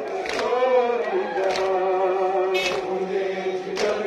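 A crowd of men chanting a nouha, the Shia mourning lament, together in unison. Sharp slaps of hands beating on chests (matam) land about once a second.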